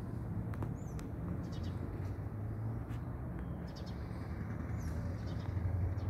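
Small birds chirping in short calls and quick trills, several times, over a steady low rumble.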